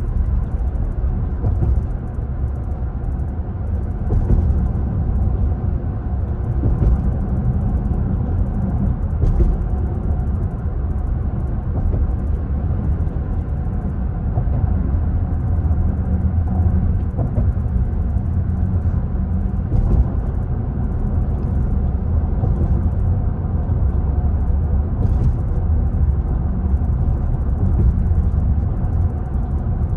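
Steady low rumble of road and engine noise inside a car's cabin while driving at highway speed, with a few faint clicks scattered through it.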